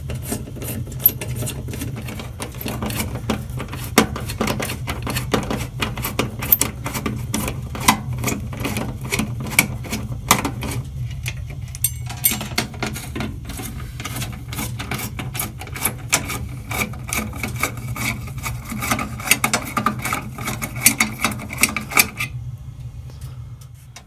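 Screws being backed out of a gas furnace's inducer motor mount: rapid, dense clicking over a steady low hum, which stops about two seconds before the end.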